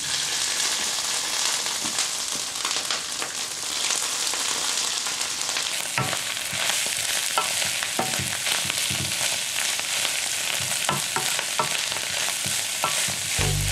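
Raw sauerkraut sizzling as it fries in hot lard with pork cracklings in a pan. A wooden spoon stirs it, adding light clicks and scrapes against the pan from about halfway on.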